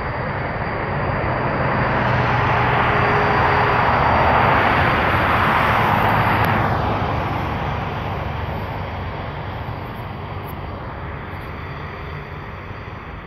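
Boeing 787 Dreamliner's Rolls-Royce Trent 1000 turbofans at takeoff thrust as the jet rolls past on its takeoff run. The roar builds to a peak about four to six seconds in, drops in pitch as the aircraft passes, then fades as it heads away down the runway.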